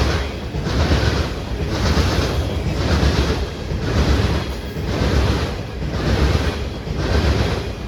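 Train cars rolling past: a steady low rumble with a swell of wheel noise about once a second as each car goes by.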